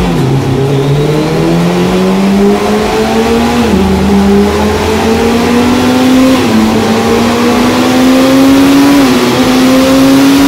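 Suzuki Hayabusa's inline-four engine accelerating hard on a roller dynamometer, its pitch climbing through each gear and dropping back at each upshift, about every three seconds.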